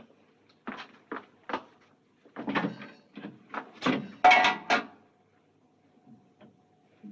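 Metal bedpans clanking and clattering as they are handled at a bedpan sterilizer: a string of separate knocks, with the loudest cluster of clanks about four seconds in. A faint steady hum follows near the end.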